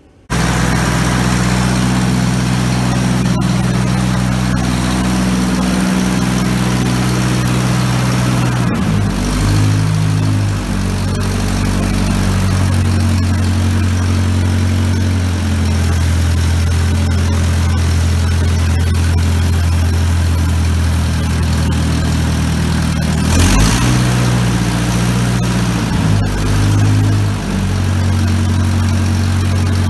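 Freshly rebuilt Ford 640 tractor engine, a four-cylinder gasoline engine, running on its first test after the rebuild, coming in abruptly at full level. It settles into a steady run, with its speed changing around a third of the way in and again near the end.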